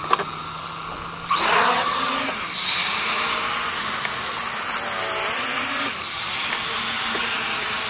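Hubsan H502S Desire quadcopter's motors and propellers spinning at idle, then throttling up about a second in as it lifts off, with a rising whine into a loud, steady whirr as it flies. The level dips briefly about six seconds in.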